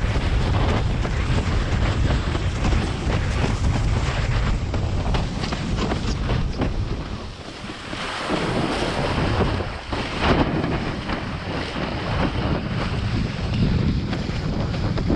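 Strong wind buffeting the microphone over the rush of water from a windsurf board sailing fast. The noise drops briefly about halfway through, then builds back up.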